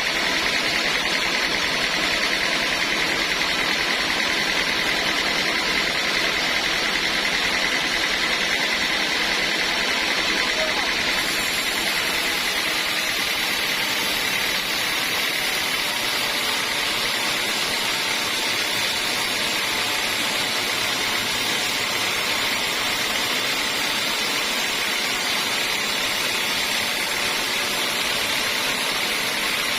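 Sawmill saw and machinery running steadily: a continuous, even mechanical noise.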